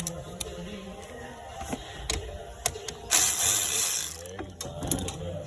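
Scattered sharp mechanical clicks, with a loud burst of hiss lasting about a second roughly three seconds in.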